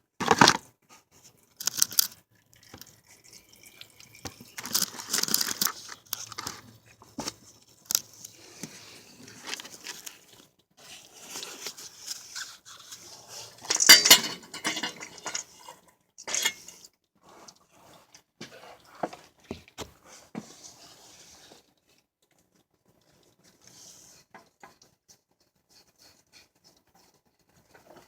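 Irregular clatter, knocks and rustling of tools and parts being handled, loudest near the start and around the middle, thinning out in the last several seconds.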